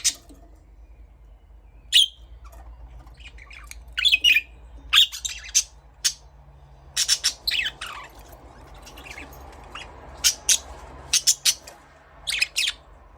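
Budgerigar calling in short, sharp chirps and squawks, a dozen or so scattered irregularly with brief pauses between them, over a faint low hum.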